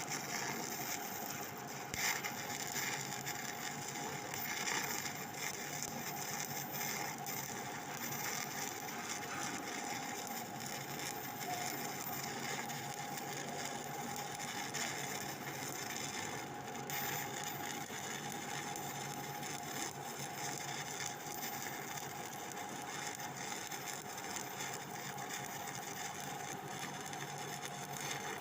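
Stick-welding arc from a 7018 electrode crackling and sizzling steadily through a long vertical-up bead, with a steady hum underneath and a few sharper pops about two seconds in.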